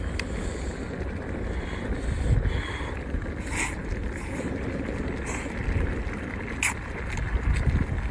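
Wind buffeting the microphone with a steady low rumble, with a few short slurps of noodles.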